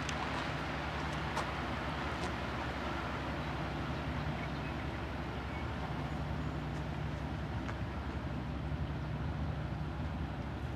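Boat engine running steadily, a low pulsing drone under a broad hiss of wind and water.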